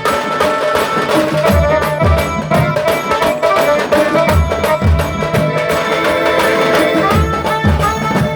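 Tasa drum band music: loud, dense drumming with deep bass-drum thumps, often in pairs, under a held melodic line.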